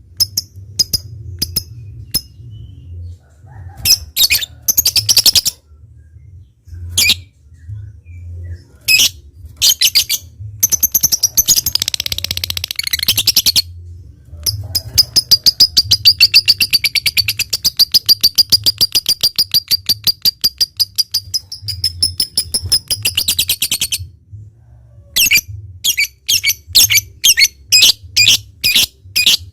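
Lovebird calling: sharp, scattered chirps, then a long unbroken rapid chatter of about nine seconds from roughly the middle on (the prized long "ngekek" song), and fast chirps again near the end.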